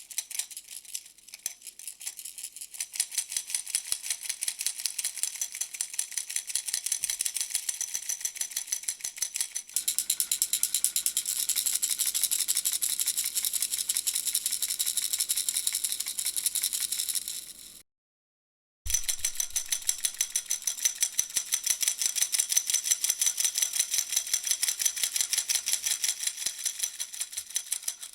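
Puppy-shaped baby rattle shaken fast and continuously, a dense, high rattling of many quick clicks. It breaks off for about a second a little past the middle, then starts again.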